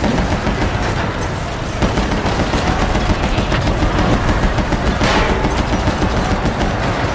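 Battle sound-effect mix: a dense, continuous din of rapid gunfire, many shots a second, with deeper booms underneath.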